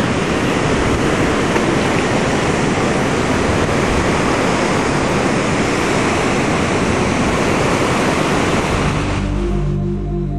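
A loud, steady rushing noise like surf or wind. About nine seconds in it fades, and a low held chord of steady tones takes over before it all cuts off.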